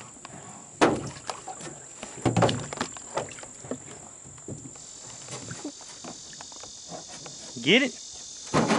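A few knocks and clatters in a small boat as a small snapping turtle, just taken off a trot line, is handled aboard. The loudest knock comes about a second in and a cluster follows a little after two seconds, over a steady high-pitched insect drone.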